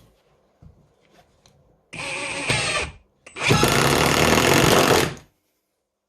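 Cordless 20V impact driver driving a wood screw into a 2x4: a short burst of running about two seconds in, then about two seconds of loud rapid hammering as the driver's impact mechanism engages.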